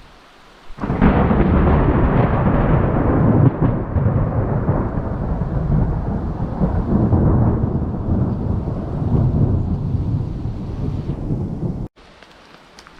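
Thunder rumbling after a lightning flash: a deep roll that starts suddenly about a second in, lasts about eleven seconds and cuts off suddenly near the end. Steady rain lies underneath.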